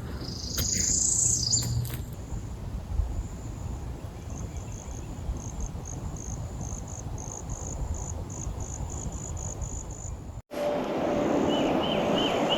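Outdoor ambience of chirping wildlife: after a brief high call at the start, short high-pitched chirps repeat evenly, about two a second, over a steady low rumble. Near the end the sound cuts out briefly and a different, lower run of chirps follows.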